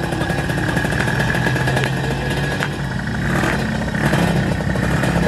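Drag-racing motorcycle engine running and being revved on the start line.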